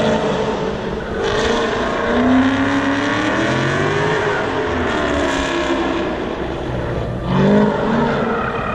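Dodge Charger Scat Pack's 392 Hemi V8 driven hard around an autocross course, its engine note repeatedly rising and falling as it accelerates and backs off between corners.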